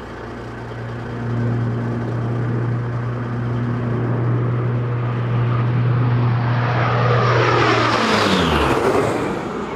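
Lockheed C-130H Hercules four-engine turboprop flying low past: a steady droning hum builds up, then about eight seconds in its pitch drops sharply as it goes by, and the sound fades.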